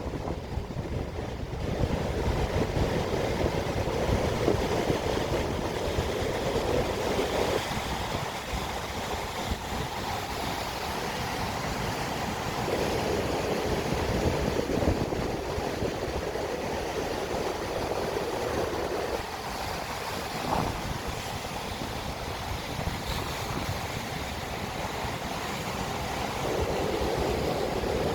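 Ocean waves washing on the shore, a continuous wash that swells and eases in long surges, with a low rumble of wind on the microphone underneath.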